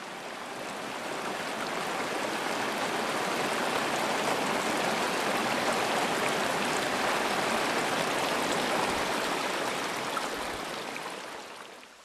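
Stream water rushing over a boulder check dam, a steady wash that swells over the first few seconds and fades away near the end.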